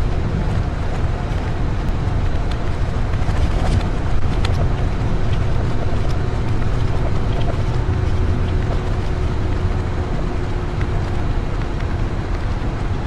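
Steady low rumble of road and engine noise inside a moving road vehicle at highway speed. A faint steady hum joins about four seconds in and fades near ten seconds.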